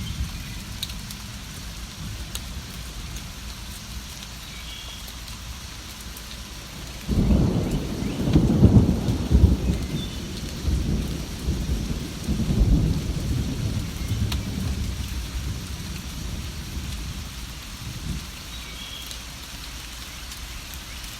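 Steady rain pouring, then thunder breaks suddenly about a third of the way in and rolls on in several low rumbles for some seconds before fading back under the rain.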